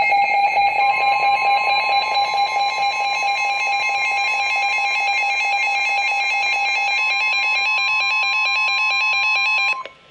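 Emergency Alert System two-tone attention signal: a loud, steady dual-tone alarm that cuts off suddenly just before the end, the cue that a spoken alert message follows.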